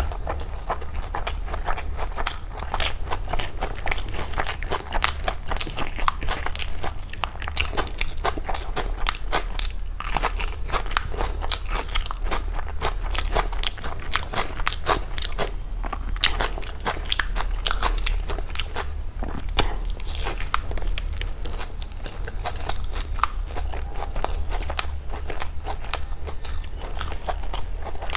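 A person chewing and biting food, with a steady run of many sharp crunches and crackles.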